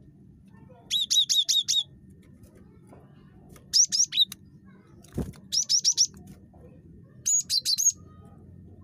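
Cinereous tit (gelatik batu) calling: four quick bursts of about half a dozen short, high, sharp notes, each burst under a second long and one to two seconds apart. A single brief knock comes midway between the bursts.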